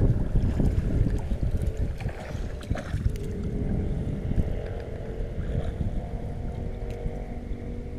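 Wind rumbling on the microphone, with water sloshing and dripping as a cast net is hauled up by hand while wading waist-deep.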